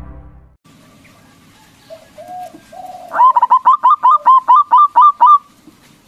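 Zebra dove (local Javanese perkutut) singing: two soft low coos, then a fast run of about ten loud clipped cooing notes lasting a couple of seconds.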